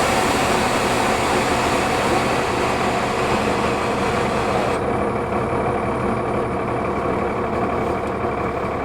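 Cummins ISL turbocharged inline-six diesel of a 2004 New Flyer D40LF transit bus running steadily, heard from inside the bus. A hiss over it stops suddenly about five seconds in.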